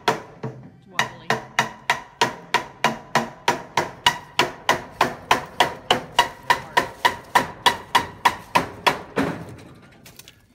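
Hammer blows nailing a wooden trim board overhead: a fast, even run of about three strikes a second, each with a short metallic ring, broken by a brief pause about a second in and stopping about nine seconds in.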